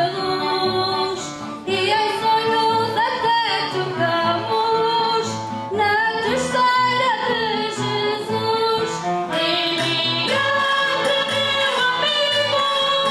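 Women singing a carnival bailinho song together over band accompaniment, with a steady low beat underneath.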